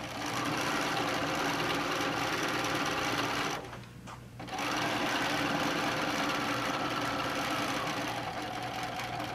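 Bernina sewing machine stitching a quarter-inch seam through layered fabric and interfacing. It runs steadily, stops for about a second partway through, then runs again.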